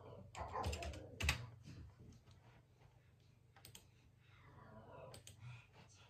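Typing on a computer keyboard: a quick run of key clicks in the first second and a half, then a few single clicks, over a faint low hum.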